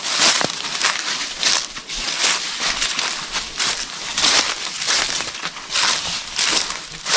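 Footsteps crunching through dry leaves and dry grass at a walking pace, each step a short crackling rustle.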